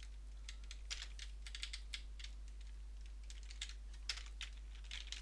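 Typing on a computer keyboard: irregular key clicks in short runs with pauses between them, over a faint steady low hum.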